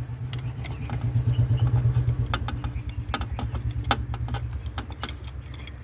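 Sharp metallic clicks and clinks of tools on metal parts during gearbox reassembly, scattered over a steady, low, fast-pulsing mechanical hum that swells about a second in and eases toward the end.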